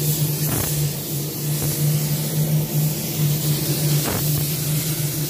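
Compressed-air paint spray gun hissing steadily as it lays a wet coat of clear coat on a car's bodywork, over a steady low hum.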